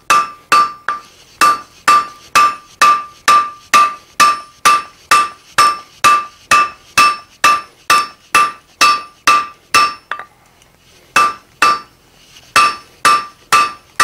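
Hand hammer striking red-hot coil spring steel on an anvil, flattening the round bar into flat stock. Steady blows come about two and a half a second, each with a bright metallic ring. They pause for about a second near ten seconds in, then resume.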